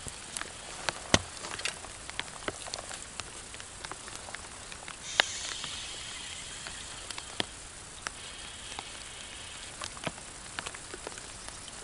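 Rain: scattered raindrops tapping irregularly on the camera's rain cover over a steady rain hiss, with one sharper tap and a short hiss about five seconds in.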